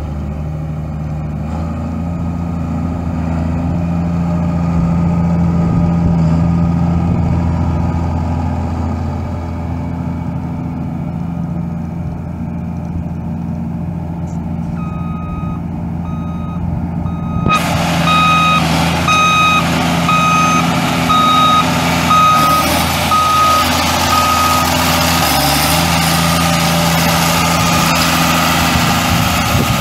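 John Deere six-cylinder turbo diesel engine running steadily. About halfway through, an electronic warning alarm starts beeping a little faster than once a second for about ten seconds. A few seconds after the beeping starts, a loud hiss suddenly joins the engine sound.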